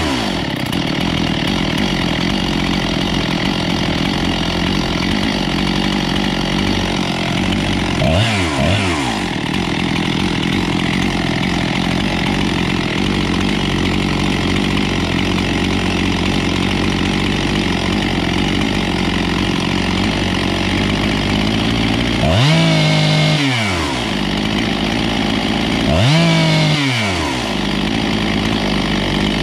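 Husqvarna 257 two-stroke chainsaw idling while its freshly rebuilt carburetor's low-speed screw is adjusted, with one short rev about a third of the way in and two quick throttle blips near the end, each rising and falling within a couple of seconds. Turned counterclockwise the low screw gives more fuel, and on throttle-up the saw gets "real doggy": a bog.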